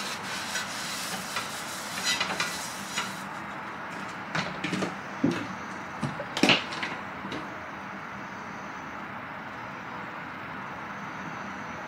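Frying pan and utensils knocking and clinking as butter and olive oil go into the pan: a handful of sharp knocks over the first seven seconds, over a steady faint hiss.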